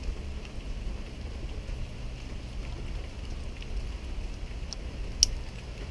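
Small engine parts being handled: a few faint ticks and one sharp click about five seconds in, over a steady low rumble.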